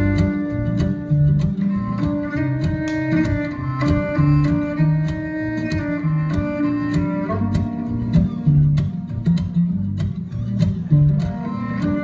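Music with a low, moving bass line, sustained pitched notes above it and a steady ticking beat.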